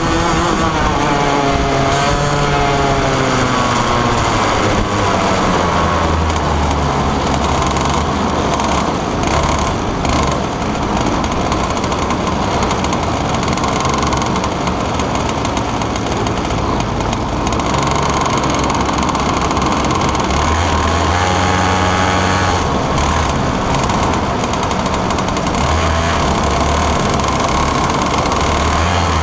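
Onboard sound of a 125cc two-stroke kart engine at racing speed, its pitch falling over the first few seconds as the kart slows for a corner, then rising again about twenty seconds in as it accelerates.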